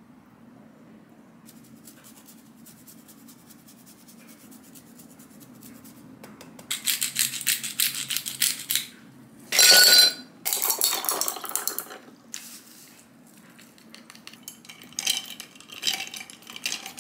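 Hand pepper mill twisted over a plate, grinding peppercorns in rapid crunchy runs, twice with a short loud burst between. Near the end a few clinks as a glass is set down on the counter.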